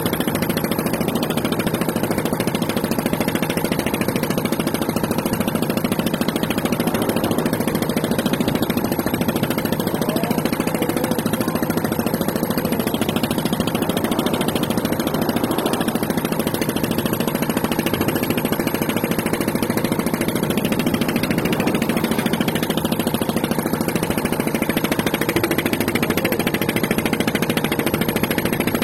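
A motor running steadily at an even speed, with no change in pitch or level.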